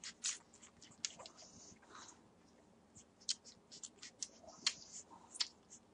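Six-day-old Entlebucher Mountain Dog puppies suckling at their mother: faint, irregular wet clicks and smacks, with a few sharper ones in the second half.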